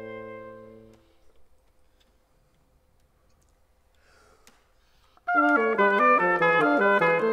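A bassoon's low held note fades out about a second in, followed by a pause of near quiet with a faint rustle and a click. About five seconds in, oboe and bassoon come in together with a loud, fast run of short notes, the bassoon low and the oboe high.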